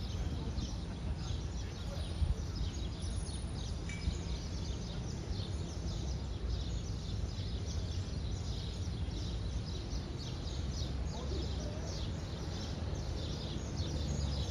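Small birds chirping rapidly and without pause, several short falling chirps a second, over a steady low rumble of city background noise.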